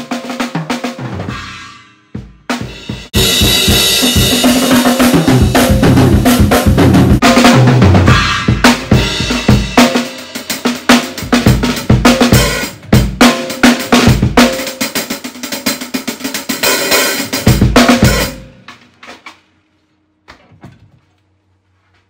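Acoustic drum kit played live: kick, snare and hi-hat, with a long stretch of heavy cymbal wash over kick and snare from about three seconds in, after a short break. Broken fills and accents follow, and the playing stops about eighteen seconds in, with a cymbal ringing out.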